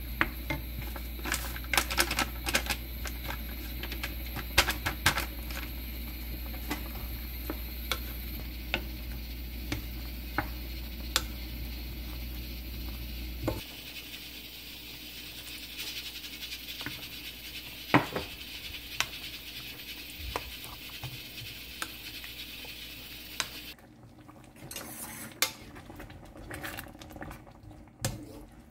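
Wooden spoon stirring vegetable curry in a nonstick frying pan, with scattered clicks and scrapes of the spoon against the pan over a simmer. Near the end the thickened curry bubbles with soft plops, the sign that it is done.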